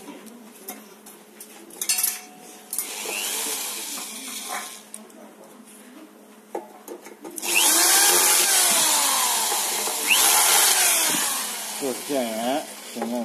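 Scattered clicks and handling clatter, then a small power tool runs loudly for about three seconds, its pitch sweeping up and down as it runs.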